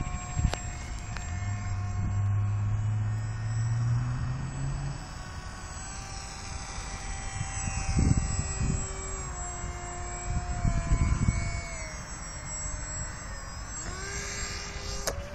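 Radio-controlled model Alpha Jet's motor whining as it flies past, the pitch sliding down over the middle and rising sharply near the end, with low rumbles on the microphone twice.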